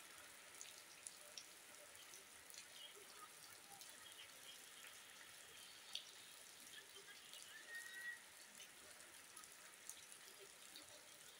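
Light rain falling, faint and steady, with scattered drips and drops pattering throughout.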